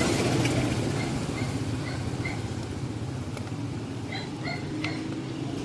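A passing vehicle's engine rumble fading as it moves away, with a few faint high chirps over it.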